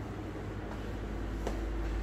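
Steady low hum over a background hiss, with a faint click about one and a half seconds in.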